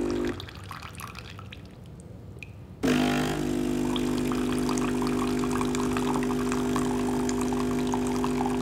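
Caffitaly S22 capsule coffee machine's pump humming as it flushes hot water through the empty brewing unit, with the water splashing into a jug below. The pump cuts out about a third of a second in and starts again after a couple of seconds, then runs steadily.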